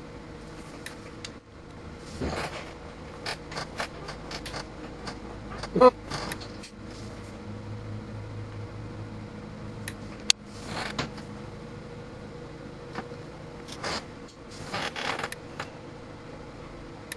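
Clicks and snaps from a surge test bench firing 2 kV transients into a multimeter, over a steady electrical hum. The loudest is one sharp snap about six seconds in, with another sharp click near ten seconds.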